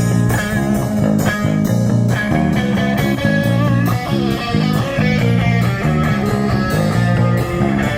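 Live punk rock band playing an instrumental passage: electric guitars and bass guitar over drums, loud and driving with a steady beat.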